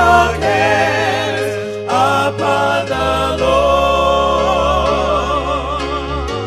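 Gospel song: sung vocals hold long notes with vibrato over sustained bass notes that shift every few seconds.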